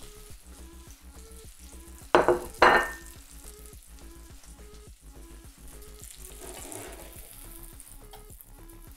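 Cauliflower steak sizzling in a stainless steel frying pan, under background music with a steady beat. About two seconds in, two loud knocks as a ceramic plate is set down on the wooden counter.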